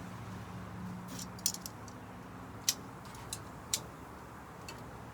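Kitchen tongs clicking and clinking about six times at uneven intervals as food is handled, over a low steady hum.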